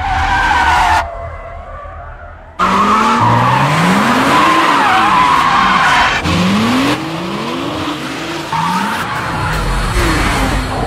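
BMW coupes drifting: tyres squealing while the engines rev up again and again in rising sweeps. The sound drops away briefly about a second in, then comes back loud.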